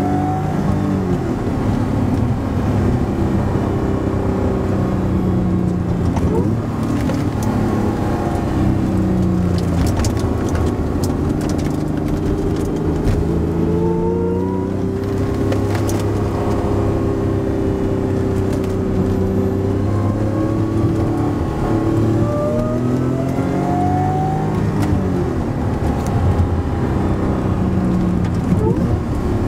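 Supercharged V6 engine of an Acura NSX heard from inside the cabin, its revs climbing and dropping several times as the car accelerates and changes gear through the bends.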